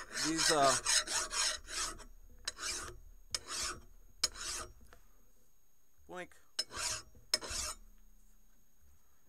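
Flat hand file rasping across the edges of a metal anvil block held in a vise, deburring it in quick back-and-forth strokes. The strokes stop for a moment a little under halfway through, then come a few more.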